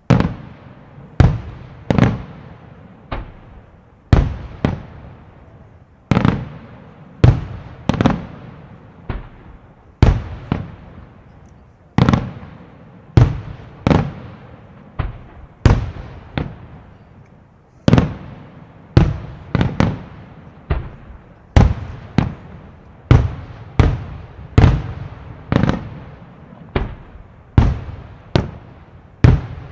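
A fireworks display: aerial shells bursting one after another in a steady series of sharp, loud bangs, about one a second with some in quick pairs, each trailing off in a rumbling echo.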